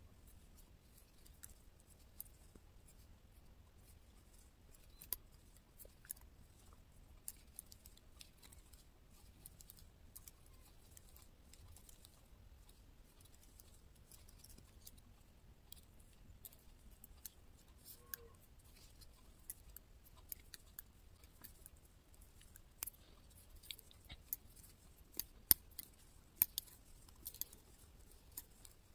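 Metal double-pointed knitting needles clicking against each other as stitches are knitted, in light, irregular clicks, with a few sharper clicks near the end.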